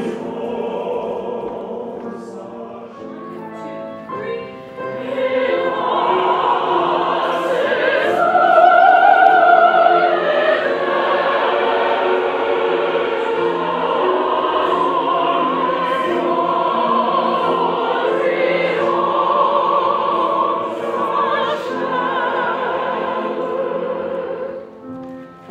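Opera chorus rehearsing, many voices singing a French passage together, with one high voice's wide vibrato standing out loudest about eight to ten seconds in.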